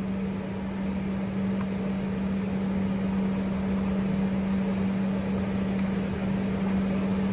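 Steady mechanical hum with one constant low tone over an even whooshing noise, of the kind an air-conditioning or ventilation unit makes, with a few faint clicks.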